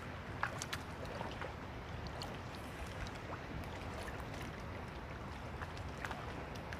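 Small water splashes and lapping against a boat, with scattered light ticks over a steady low rumble.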